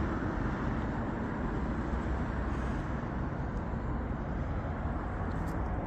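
Steady road traffic noise, with cars going by.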